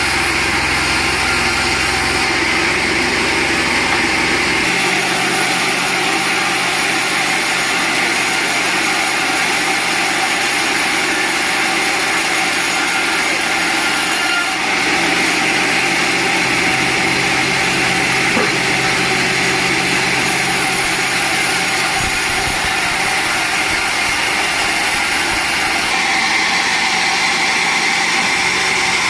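Sawmill saw running steadily through a large mangosteen log, a continuous loud machine noise whose tone shifts a few times as the cut goes on.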